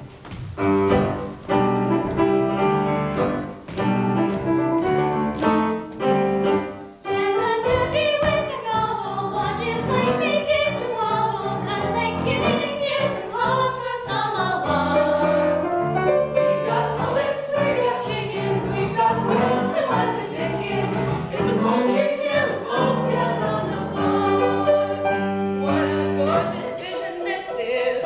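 A song sung by several voices together, with instrumental accompaniment.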